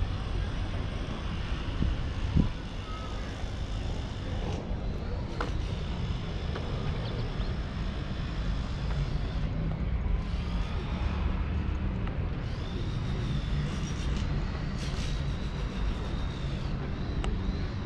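City street ambience: a steady low rumble of traffic, with one sharp knock about two and a half seconds in.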